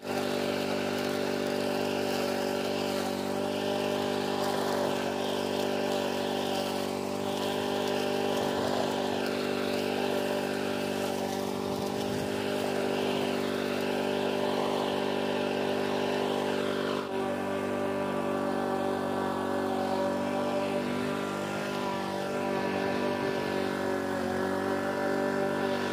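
Petrol walk-behind rotary lawn mower engine running at a steady speed as the mower is pushed along, lightly topping the lawn.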